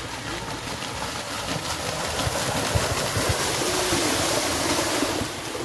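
Rushing splash and spray of mud and water as a yoked pair of racing cattle charge through a flooded rice paddy. It swells to its loudest in the middle, then eases off, with faint voices underneath.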